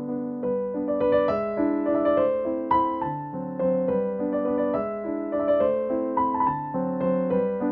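Background piano music: a gentle tune of evenly spaced notes.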